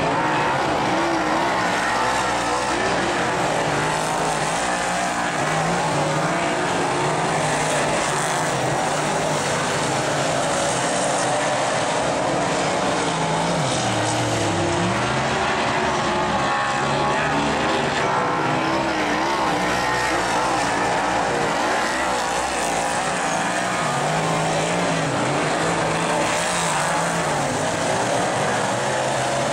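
A pack of speedway race car engines running hard on a dirt oval, the engine notes rising and falling as the cars accelerate and lift through the turns.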